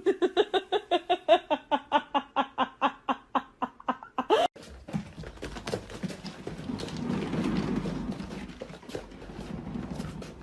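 An animal call: a long run of rapid pulsed cries, about five a second, ending in a short rising cry after about four and a half seconds. Then the sound changes abruptly to a quieter, noisy stretch with scattered knocks and a low rumble.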